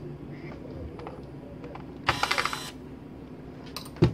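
A small electric screwdriver whirs briefly, with a rapid clicking rattle, for about half a second about two seconds in. A single sharp knock follows near the end as the tool is handled on the bench.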